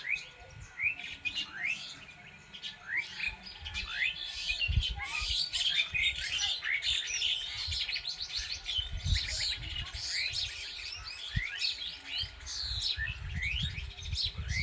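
Many birds chirping and calling at once in woodland: a dense chorus of short rapid chirps and twitters, busiest from a few seconds in. Irregular low thuds and rumbles sound underneath.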